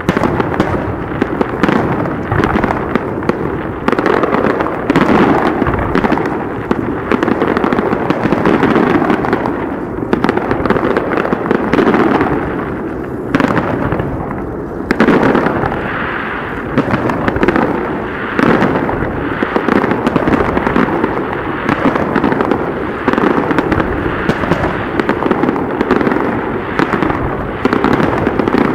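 Aerial fireworks shells bursting in a dense barrage, the bangs following one another with hardly a gap.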